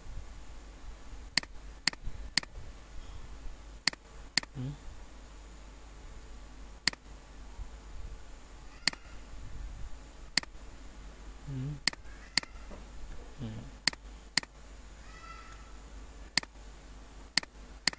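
Computer mouse button clicking about fifteen times at irregular intervals, some in pairs about half a second apart, over a steady low hum.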